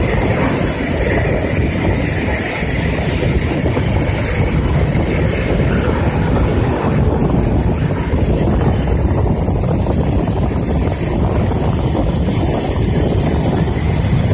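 A pair of Blue Angels F/A-18 Hornet jets on their takeoff roll, their engines making a loud, steady jet roar with a deep rumble. Wind buffets the microphone.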